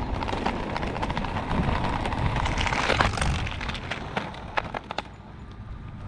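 Footsteps on pavement while walking briskly, with wind rumbling on the action camera's microphone. The steps show as sharp clicks and are busiest in the first few seconds; the sound grows quieter about two-thirds of the way through.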